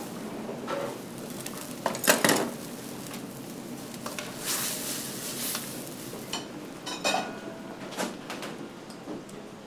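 Metal ladle clanking and scraping against a wok of bubbling sauce, over a steady hiss. The loudest clanks come about two seconds in, and a handful of lighter knocks follow.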